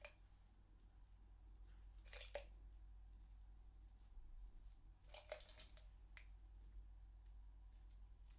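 Near silence with a few faint, brief crinkles of crumpled plastic wrap being dabbed over a glued paper napkin on a glass jar: one about two seconds in, and a longer one around five seconds in.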